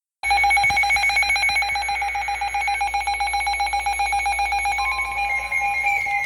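Weather radio alarm sounding for an emergency alert: a loud, steady, rapidly pulsing electronic alert tone. A second tone gliding downward, siren-like, starts near the end.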